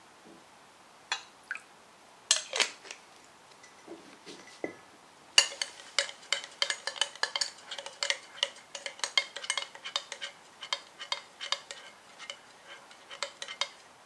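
Metal spoon stirring inside a glass jar, clinking against the glass as it breaks up frozen goat milk and caustic soda crystals to melt them together. A few separate clinks come first, then from about five seconds in a fast, continuous clinking, the glass ringing with each strike.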